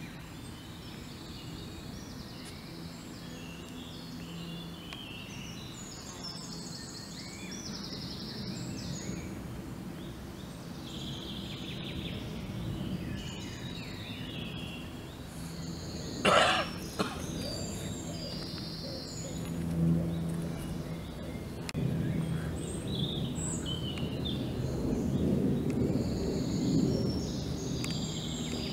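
Low buzzing of a red-tailed bumblebee (Bombus lapidarius) at the mouth of its burrow in bare soil, with birdsong in the background. The buzzing swells louder in the last few seconds, and a short sharp noise about sixteen seconds in is the loudest sound.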